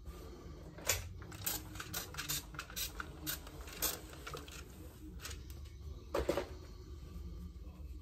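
Fabric being smoothed by hand and pressed with a hand iron on an ironing board: a string of irregular light clicks and rustles, with a sharper click about six seconds in.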